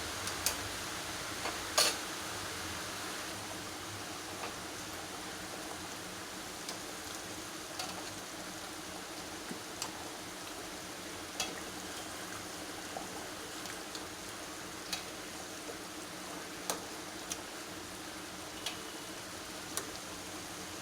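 Chicken korma gravy bubbling in the pot with a steady low sizzling hiss, and a serving spoon clinking against the cookware now and then as it is dished out; the loudest clink comes about two seconds in.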